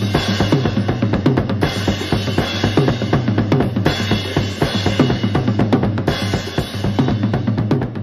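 Recorded drum-led instrumental music: a drum kit played busily, with rapid bass drum and snare strokes and cymbals, over a steady low bass note.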